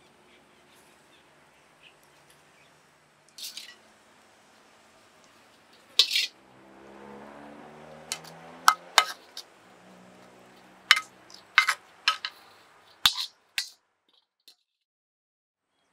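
A ladle clinking and scraping against a wok and a ceramic plate as stir-fried clams are spooned onto a plate of greens: a string of sharp clinks, bunched in the second half.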